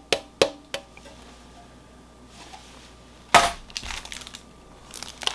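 Light metallic clinks and knocks from a thin metal novelty license plate being handled and set down, with one short, louder clatter about three seconds in and a few softer knocks near the end.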